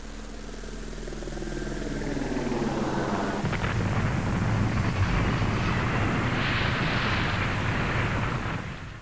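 Jet aircraft engines running, likely a sound effect: a whine sliding down in pitch as a rushing roar builds over the first few seconds, then a loud steady roar from about four seconds in that cuts off sharply at the end.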